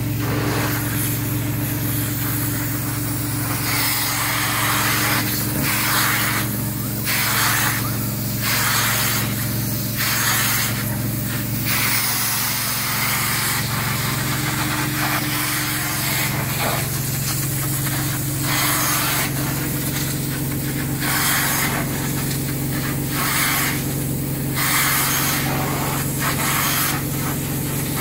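Truck-mounted upholstery extraction tool working over microfiber fabric: a steady low hum from the extraction unit, with a spraying and sucking hiss that swells and drops in repeated strokes as the tool is drawn across the fabric.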